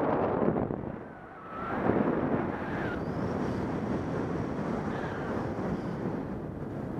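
Wind rushing over the microphone of a camera carried in flight under a paraglider; it eases about a second in, then swells back and runs on steadily.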